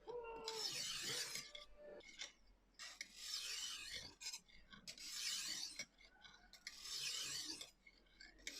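Oiled Lansky sharpening hone, the 280 grit stone, swept along the edge of a steel kitchen knife held in the clamp. Four rasping strokes, each about a second long and about two seconds apart, honing the edge at 25 degrees to raise a burr.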